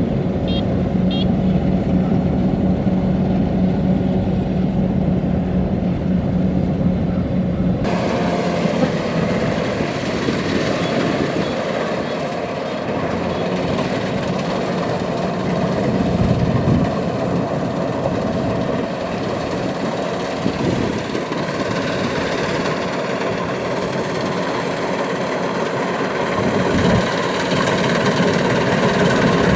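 Kubota DC-93 combine harvester running steadily under its four-cylinder turbodiesel, a low even hum. About eight seconds in the sound switches abruptly to a brighter, noisier machine wash at about the same loudness.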